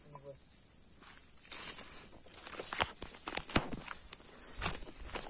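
Steady high-pitched insect drone, with footsteps rustling through vegetation starting about a second and a half in, and a few sharper knocks and snaps around the middle.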